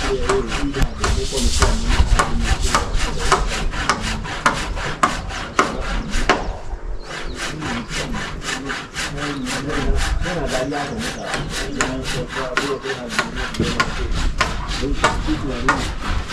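Handsaw cutting through wooden timber in quick, even strokes, about three or four a second, with a short pause about seven seconds in.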